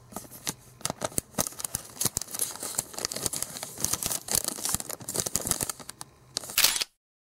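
Clear cellophane bag crinkling and rustling, with light clicks of small chocolate pieces being handled. Near the end comes a short, louder burst like a camera shutter.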